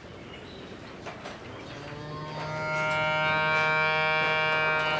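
A dairy cow mooing in one long, steady call that starts about two seconds in.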